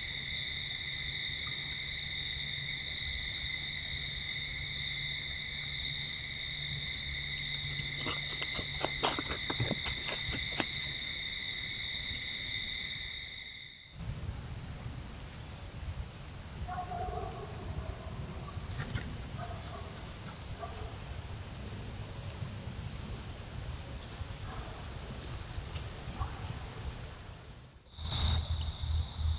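Crickets and other insects chirring steadily in several high pitches at once, with a quick cluster of sharp ticks about eight to ten seconds in. About halfway through the sound cuts off abruptly and a thinner, single-pitched insect trill carries on, cutting again near the end.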